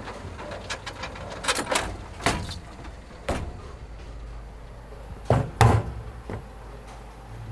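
A series of short knocks and thumps, the loudest two in quick succession about five and a half seconds in, over a steady low hum.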